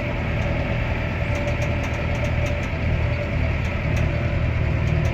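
Engine idling steadily: a constant low hum with a faint steady whine above it.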